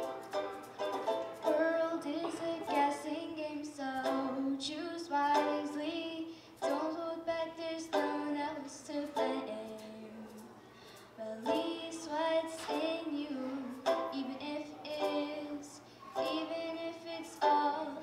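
A girl singing a song in phrases with short pauses between them, accompanied by a strummed small banjo-type string instrument.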